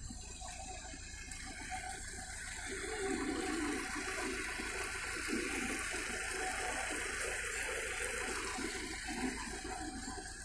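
Muddy water flowing fast through a gap dug in an earthen pond bank as the pond drains, growing louder from about three seconds in and easing a little near the end.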